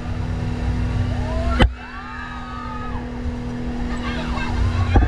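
Speedboat engine running steadily under a low rumble of water and wind, with faint voices calling over it. A sharp click about a second and a half in, after which the sound drops a little.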